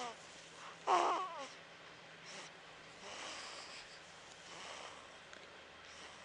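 A sleeping baby's little noises: one short, squeaky vocal sound with a wavering pitch about a second in, then a few soft, faint breaths and snuffles.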